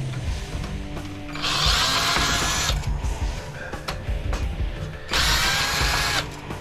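Power drill running in two short bursts of about a second each, driving screws out of a computer case.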